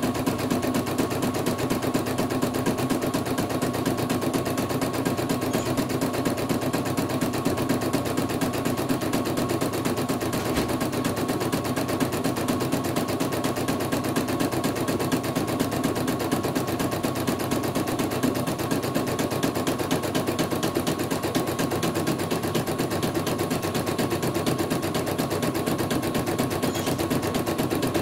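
CNY portable embroidery machine stitching a design: a fast, steady rattle of needle strokes as the hoop is driven along, with a steady high whine under it.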